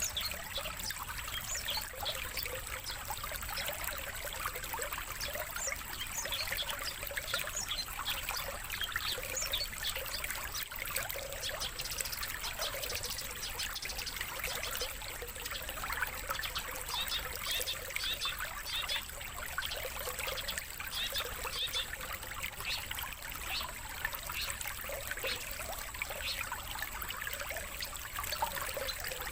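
Water trickling and splashing steadily, a dense stream of small splashy ticks with a faint steady high whine underneath.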